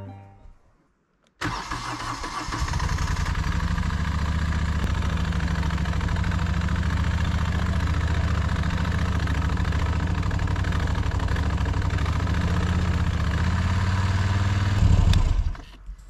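Moto Guzzi V-twin motorcycle engine starting about a second and a half in and settling into a steady idle, growing briefly louder just before it cuts off near the end.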